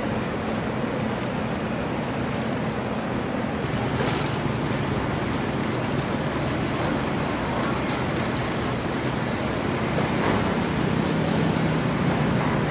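Steady engine hum of a small tugboat pushing a barge, over harbour water and wind noise; the engine hum grows louder about ten seconds in.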